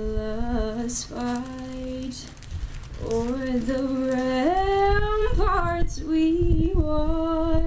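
A woman singing the national anthem solo in slow, long-held notes that step up in pitch about halfway through, with a low rumble underneath.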